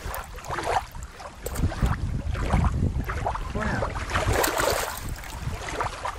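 Water sloshing and splashing in a shallow plastic pool as a hand moves rubber bath toys through it, with wind rumbling on the microphone.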